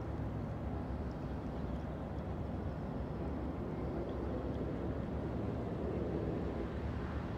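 Shrimp trawler's engine running steadily under way, a low, even drone.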